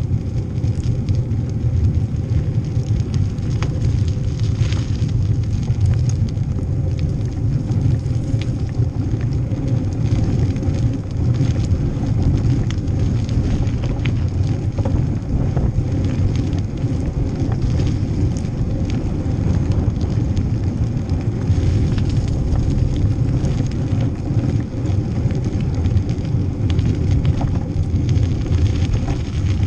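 Wind buffeting the microphone of a bicycle-mounted GoPro while riding, a steady low rumble, with scattered light clicks and rattles as the bike rolls over the pavement.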